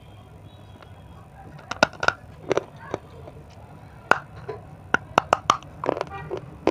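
Bites into a hard white 'crunchy stone' piece, close-miked: a run of about a dozen sharp, separate crunches and cracks, starting a little under two seconds in.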